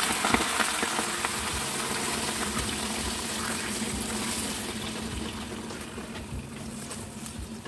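Hot water poured from a jug into a hot wok over pan-fried fish, splashing and hissing in a burst of steam. The hiss dies down about five seconds in, leaving the water bubbling quietly.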